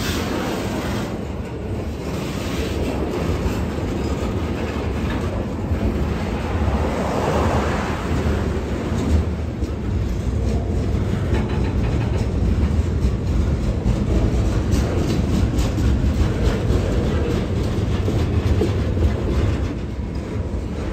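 A freight train of garbage container cars rolls past, its wheels rumbling steadily on the rails and clicking over the rail joints.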